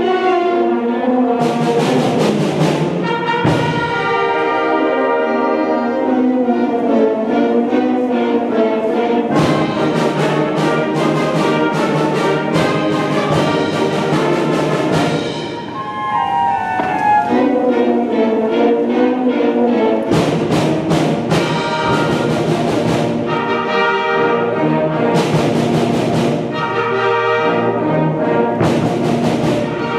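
A student concert band playing: flutes, clarinets, saxophones, French horns, trombones and tubas holding and moving through chords, with drum-kit percussion striking in several stretches. The band drops briefly softer about halfway through.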